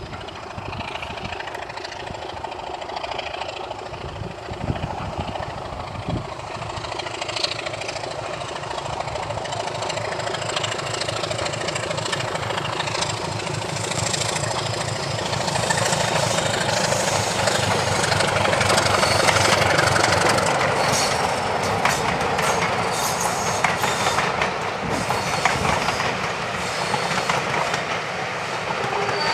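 Class 24 diesel-electric locomotive with its Sulzer six-cylinder diesel engine running as it hauls a train of coaches past, growing louder as it approaches and easing off slightly in the last third. Wheels click over the rail joints.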